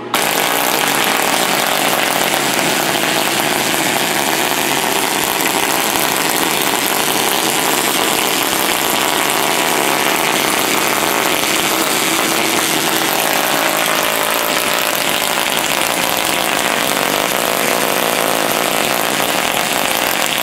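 High-voltage sparks from a homemade 20-stage Cockcroft-Walton multiplier, fed by a ZVS flyback driver, arcing from its toroid to a second electrode in a dense, continuous crackle. It starts abruptly at switch-on and holds steady.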